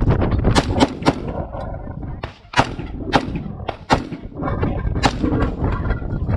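A string of single rifle shots, about five sharp cracks spaced irregularly, half a second to a second and a half apart, with smaller clicks between them over a steady low rumble.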